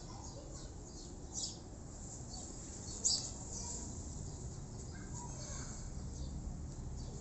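Outdoor garden ambience with short, high bird chirps, one about a second and a half in and a louder one around three seconds, then a few faint calls.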